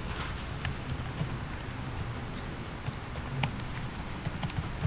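Computer keyboard typing: irregular key clicks over a steady background hiss.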